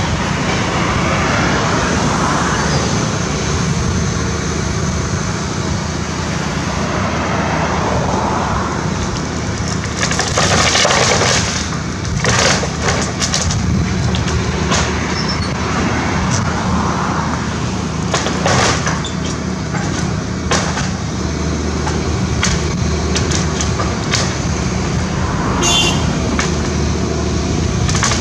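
Volvo excavator's diesel engine running steadily under load while it tears apart a wood-frame building: timbers crack and splinter throughout, with the loudest breaks about ten, twelve and a half, and eighteen and a half seconds in.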